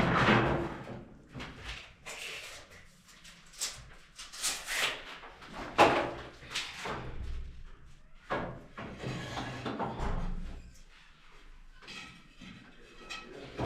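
Irregular knocks and bangs, a few seconds apart, with quieter stretches between them.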